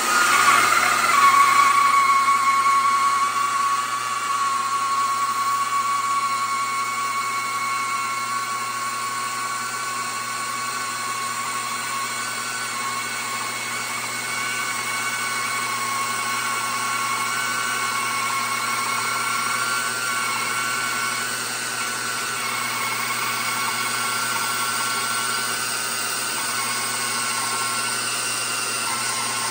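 Mafell Z5Ec portable timber-framing bandsaw switching on and then running steadily with a high whine as it cuts across the end of a rafter, loudest in the first few seconds. A compressed-air blow-off hisses at the blade throughout.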